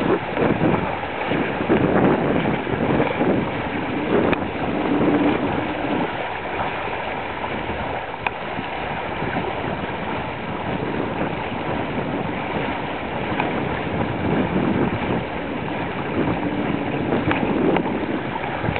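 Wind buffeting the microphone over the rush and slosh of water, swelling and easing, with a faint hum coming in twice.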